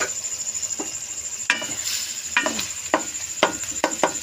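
Wooden spatula stirring beef mince in a metal karahi, scraping and knocking against the pan in a quick run of strokes from about a second and a half in.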